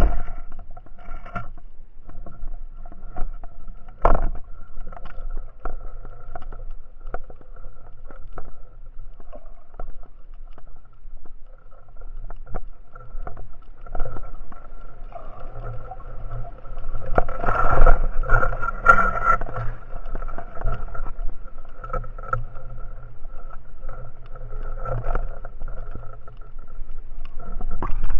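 Underwater sound of a motorboat's engine and propeller, a steady whine that swells louder around the middle, with scattered clicks and knocks through the water.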